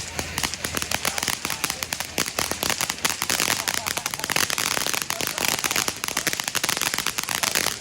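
Spirit of Freedom ground fountain firework crackling: a dense, rapid run of sharp crackles over the hiss of its spark spray.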